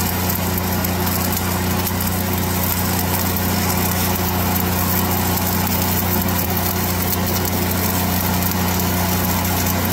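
Stick-welding arc of a 1/8-inch 7018 electrode burning steadily with a continuous crackle, over the steady hum of a Lincoln 305D engine-driven welder running.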